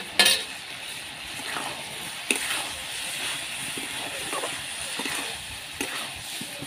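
Steel spatula stirring and scraping spiced vegetables in a steel kadai over the heat, with a soft frying sizzle underneath. Sharp clacks of the spatula striking the pan come just after the start and again about two seconds in, with a lighter one near the end.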